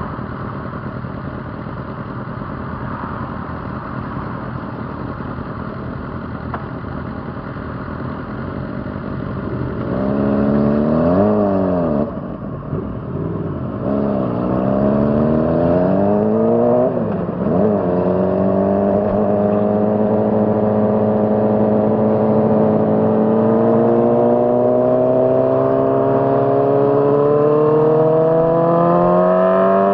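2006 Honda CBR600RR's inline-four engine running at steady low revs, then about ten seconds in it revs up and drops back twice in quick succession as gears are changed, and then climbs slowly and steadily in pitch under a long pull in one gear.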